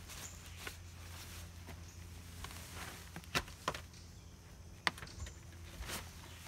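Footsteps and scuffs of a person climbing up into a camper trailer doorway onto a debris-littered floor, with a few sharp knocks about three and a half and five seconds in.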